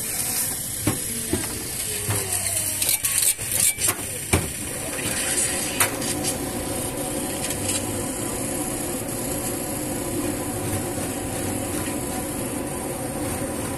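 Clanks and knocks from the handles of a cast-iron marquesita press over a steady hiss of the burner. In the last couple of seconds a rasping scrape follows as cheese is grated on a metal box grater.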